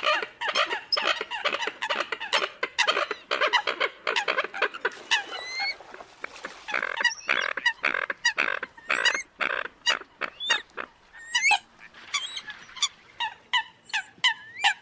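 Eurasian coots calling: a dense run of short, sharp calls, several a second, some of them overlapping.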